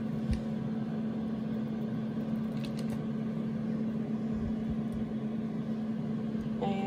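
A steady low hum from a running kitchen appliance. Over it come a few light clicks and soft knocks as a silicone spatula puts a pat of butter into a stainless steel frying pan.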